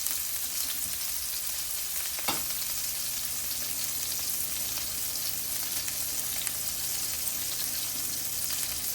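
Meatballs sizzling as they fry in a pan, a steady crackling hiss. About two seconds in there is a click, after which a low steady hum starts.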